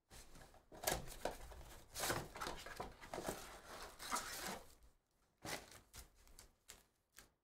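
A 2023 Topps Stadium Club cardboard hobby box being torn open and its foil-wrapped card packs pulled out: tearing and crinkling in a string of short bursts that thin out after about five seconds.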